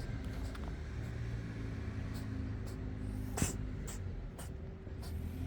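A calico cat sneezes once, sharply, about three and a half seconds in, over a steady low rumble.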